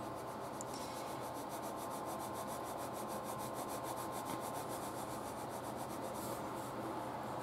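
Ballpoint pen scratching on paper in quick, light back-and-forth hatching strokes, a faint, steady rapid scratching while shading a light value.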